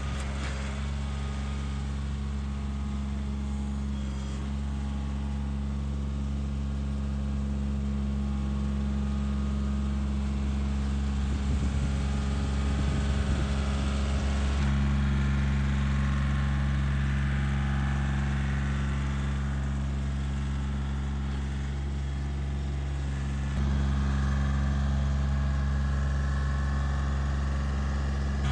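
Kioti compact tractor's diesel engine running steadily while it pulls a box grader over a gravel driveway. The low hum shifts in pitch about halfway through and again near the end.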